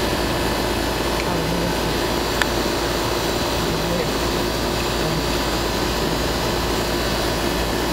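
Outdoor air-conditioning condenser unit running: a steady hum of fan and compressor. A single sharp click about two and a half seconds in.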